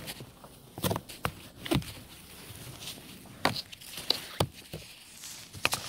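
Snow brush pushing and sweeping through deep snow: a series of irregular crunching, scraping strokes of bristles and blade through the snow.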